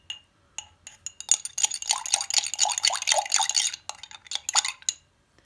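Metal spoon stirring in a faceted drinking glass of warm water with condensed milk, clinking and scraping against the glass. A few separate taps come first, then a couple of seconds of rapid continuous clinking, then a few more taps before it stops near the end.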